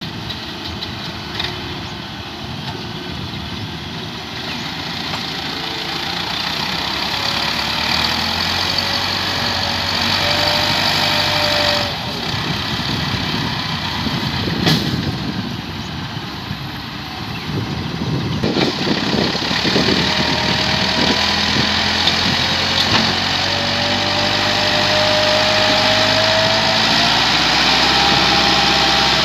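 Massey Ferguson farm tractor diesel engines running, the revs climbing in long slow pulls and easing off again, as when working with a heavily loaded soil trolley.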